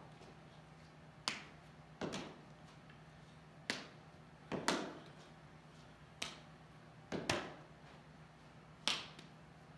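Baseball short-hopping and smacking into a leather fielding glove: sharp knocks with a short ring-out, about one a second, a couple of them in quick pairs.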